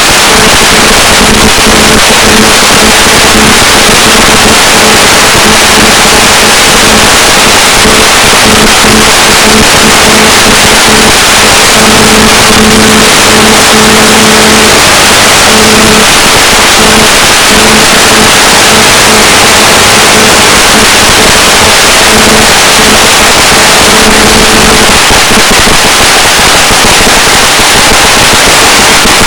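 Loud steady static hiss from the 1.3 GHz FPV video receiver's audio channel, with a buzzing hum near 217 Hz that drops in and out in stretches and stops about 25 seconds in: GSM interference from a mobile phone kept in a pocket beside the ground station.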